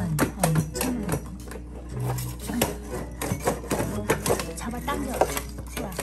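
Small plastic cat toys clattering and knocking against one another and the floor as they pour out from under a refrigerator: many quick irregular clicks, with light background music.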